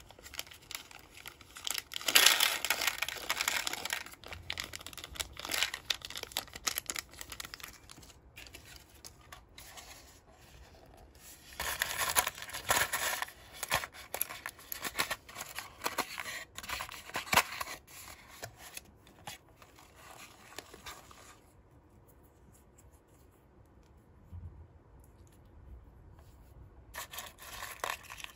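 Foil sachet from a Japanese DIY candy kit being torn open and crinkled in a few loud rustling bursts. Softer scraping of a small plastic spoon in a plastic tray follows near the end.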